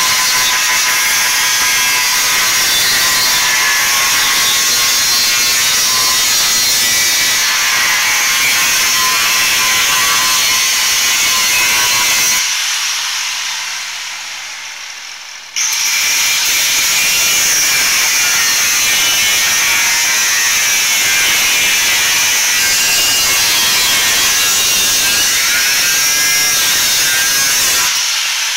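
Angle grinder with a cutoff wheel cutting through the lip of a brake dust shield, a loud whine over a gritty grinding noise. About twelve seconds in the grinder is let off and spins down. It starts again suddenly about three seconds later and cuts on until it drops off near the end.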